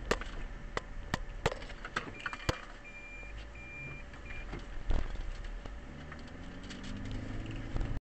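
Inside a moving car: several sharp clicks, then four short beeps about two seconds in, and a heavy thump about five seconds in. After that the engine speeds up, its pitch rising.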